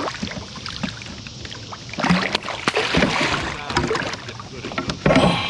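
Water splashing and clattering knocks around a kayak while a hooked catfish is fought on a bass rod, loudest in a stretch of several clicks and knocks from about two seconds in and in a short burst near the end.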